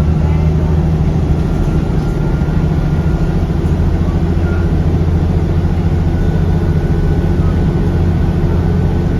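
Alexander Dennis Enviro400 Trident double-deck bus diesel engine running steadily, heard on board, with a faint high turbocharger whine above the low engine note.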